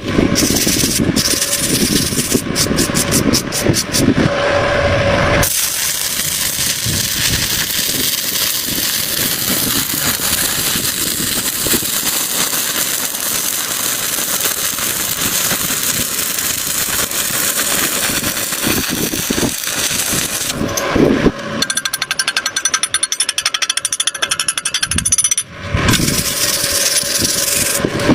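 Harsh, continuous metalworking tool noise that changes character a few times, with a brief run of rapid clicks near the start.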